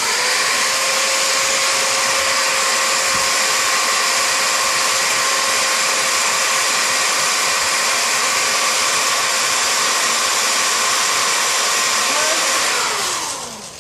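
Electric drill running steadily at speed as its bit bores into a thick toenail, then winding down with a falling whine near the end as the trigger is released.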